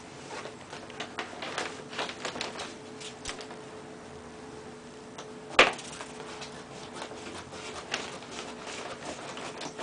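Irregular clicks and taps of a trim channel being pushed onto the edge of a pinball backglass, with one loud sharp knock about halfway through. A faint steady hum runs underneath.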